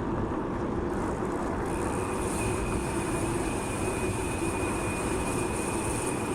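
Steady wind and road noise while riding a bicycle in a strong wind, with a faint high steady whine coming in about two seconds in.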